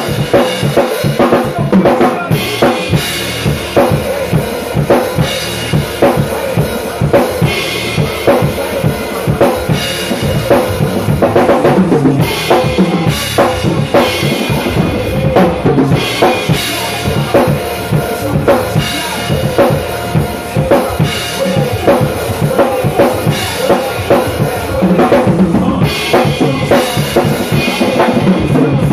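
Acoustic ddrum drum kit played in a steady groove: bass drum, snare and cymbals, played along to a recorded hip-hop track.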